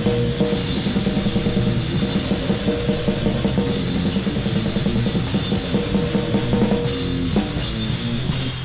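Grindcore music: distorted guitars over fast, pounding drums with bass drum and cymbals, a dense wall of sound that breaks off right at the end.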